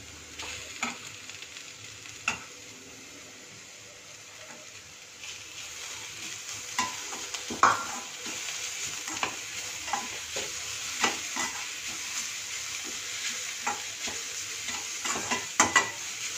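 Grated beetroot and onions frying in oil in a stainless steel pan, stirred with a slotted metal spatula that scrapes and clicks against the pan. The sizzle grows louder about five seconds in, as the beetroot is stirred into the hot oil.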